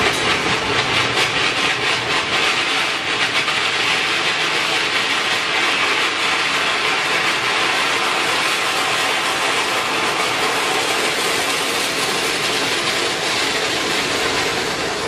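Steam and boiling coolant jetting out of an overheated car's radiator filler neck once the cap is off: a steady hissing rush. The coolant, heated to the maximum with the cooling fans disconnected, flashes to steam as the pressure is released.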